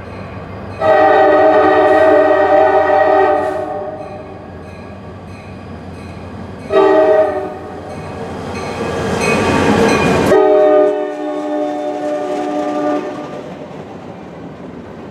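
CSX EMD SD50-2 locomotive sounding its K5LA air horn for a grade crossing: a long blast, then a short one, then a long one that drops in pitch as the locomotive passes. The diesel engine and wheels grow loud as it goes by, then fade.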